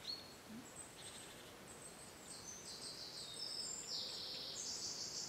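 Faint high-pitched chirping from wildlife outdoors: one short whistled chirp at the start, then a busier, slightly louder run of chirps and trills over the last three seconds.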